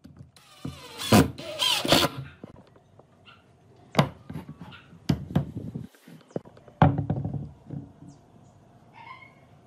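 Pine wood being handled on a wooden workbench: a squeaky scraping stretch in the first couple of seconds, then a few sharp wooden knocks as blocks and the assembled base are set down and shifted.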